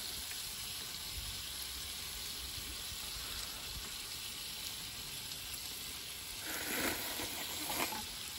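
Steady hiss throughout, with a short burst of noodle slurping about six and a half seconds in and another brief one near the end.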